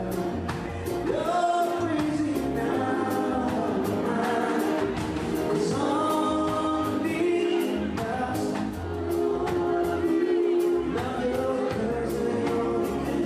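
Live band playing with a singer: a sung melody over instruments and drums keeping a steady beat.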